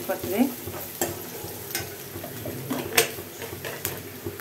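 Long steel spoon stirring sliced onions and spices frying in oil in a steel kadai: a steady sizzle with several metal clinks of the spoon against the pan, the sharpest about three seconds in.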